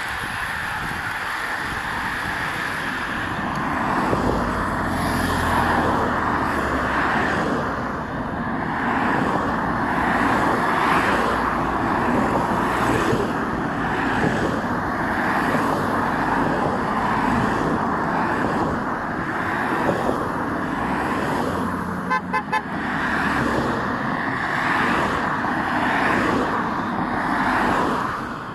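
Race convoy cars, team cars with bikes on their roof racks, driving past in a steady stream close by, after the last riders of the bicycle peloton go by at first. Car horns toot, with a quick run of short toots about three-quarters of the way through.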